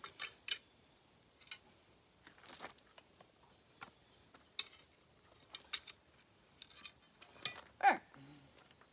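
Scattered light clicks and metallic clinks of small metal parts and tools being handled on a workbench. The loudest comes near the end: a short falling scrape with a brief ring.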